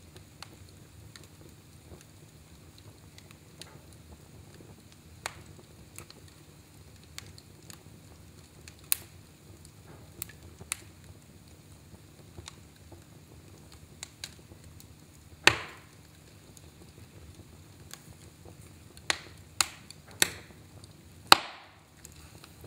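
Fire crackling in a fireplace: irregular sharp pops and snaps, a few louder ones close together near the end.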